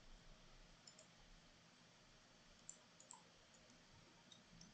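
Near silence: room tone with a few faint, sharp computer-mouse clicks.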